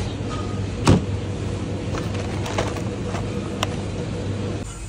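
Steady low hum of supermarket refrigeration, with one sharp knock about a second in and a few lighter clicks as a plastic tray of frozen meat is handled.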